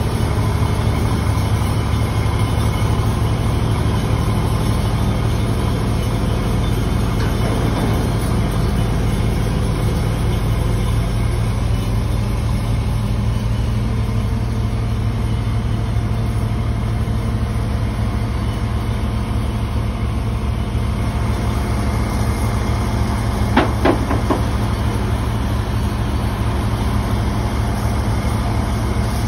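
Diesel engine of a large mobile crane running steadily as it hoists a steel truss, a constant low drone. About three-quarters of the way through there is a quick double clank, like metal striking metal.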